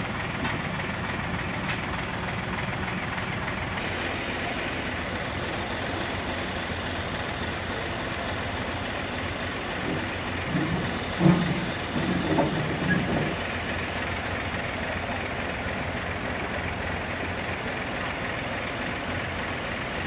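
Heavy diesel engine running steadily at idle, with voices calling out briefly about halfway through.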